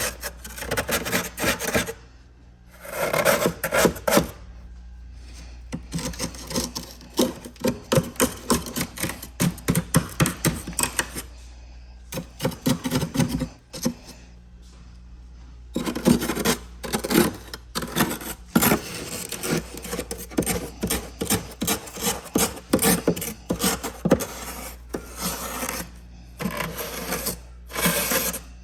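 Frost being scraped off the walls of a heavily frosted freezer in quick, rasping strokes. The scraping comes in bouts with short pauses, over a steady low hum.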